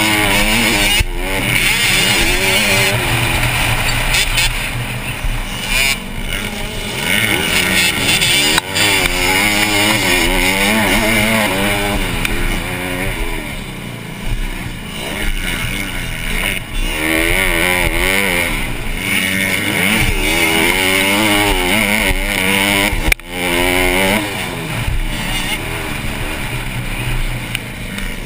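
Honda CRF150R's single-cylinder four-stroke engine ridden hard on a motocross track, revving up and falling back again and again as the rider opens and shuts the throttle, heard through the rider's helmet camera. There is one sudden short dip in loudness near the end.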